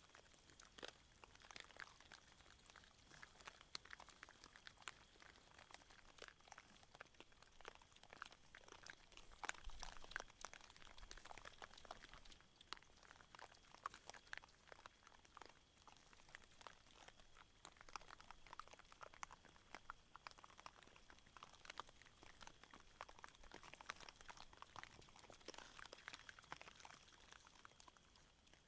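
Wild boar crunching and chewing maize kernels at a feeder: a faint, irregular run of small crunches and clicks, with a faint steady high tone underneath.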